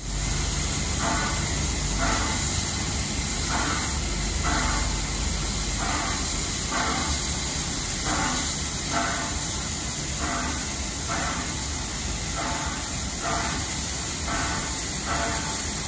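Steam hissing steadily from the standing R class steam locomotive R711, with a pair of short pulses repeating about every two seconds.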